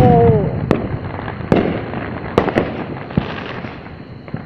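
Fireworks going off: a handful of sharp bangs at irregular intervals over a continuous crackle and rumble of further bursts, fading slightly toward the end.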